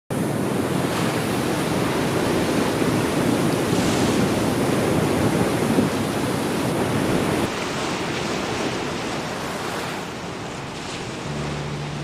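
Heavy surf breaking over rocks and onto a sandy shore: a steady rushing wash of waves that grows quieter in the last few seconds.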